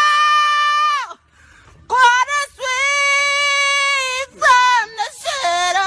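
A high-pitched voice holding long, steady notes, about five of them. The longest, near the middle, lasts over a second.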